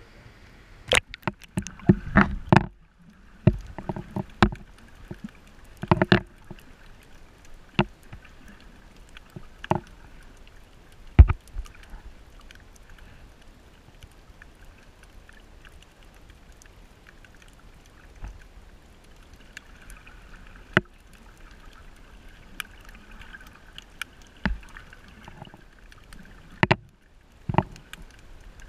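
Water splashing and sloshing against a camera held at the sea surface during the first few seconds, then muffled underwater sound from the submerged camera: a low steady hiss broken by scattered sharp clicks and knocks, the loudest about eleven seconds in.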